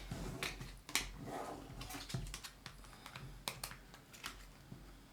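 Plastic credit cards being slid into a slim machined aluminum card wallet and handled, making irregular light clicks and scrapes.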